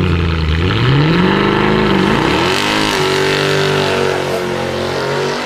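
Mercedes-AMG car engine running loud: its revs climb about a second in, dip briefly, climb again, then settle to a steady note about three seconds in.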